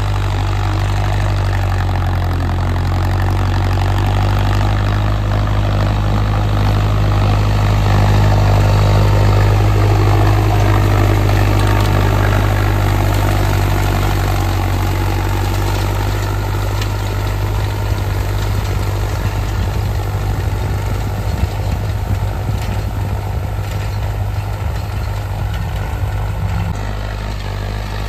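Mahindra tractor's diesel engine running steadily while it pulls a rotavator through stubble. It grows louder as the tractor passes close, about a third of the way in, then slowly fades as it moves away.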